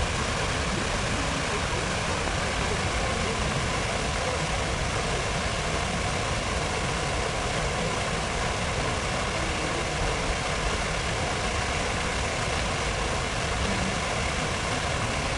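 Steady city-square ambience: an even, unchanging wash of fountain water and traffic noise.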